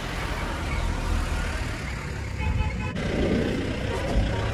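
Street noise: a steady low rumble with a haze of traffic sound, changing abruptly about three seconds in.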